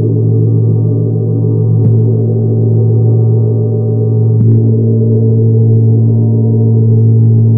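Tibetan gong ringing in a long, layered wash with a strong deep tone underneath, struck again about two seconds in and about four and a half seconds in.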